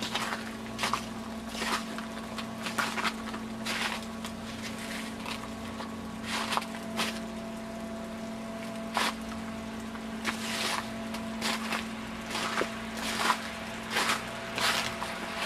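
Footsteps crunching on ice-crusted snow, irregular steps with a quieter stretch in the middle, over a steady low hum.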